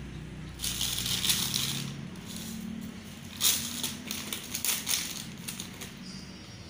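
Thin plastic bag crinkling and rustling in two bursts, about half a second in and again around three and a half seconds in, as crushed Oreo crumbs are shaken out of it.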